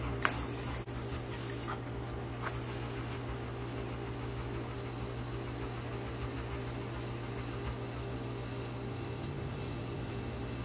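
TIG welding arc on a steel engine-mount bracket: a click as the arc strikes just after the start, then a steady hiss over a low hum while the bead is run.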